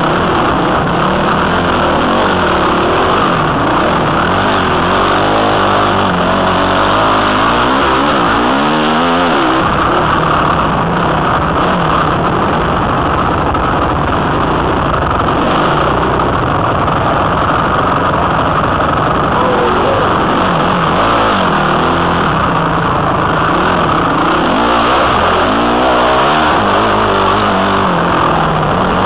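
Honda CRF250 dirt bike's single-cylinder four-stroke engine running loud and continuously, its note rising and falling as the throttle is opened and closed.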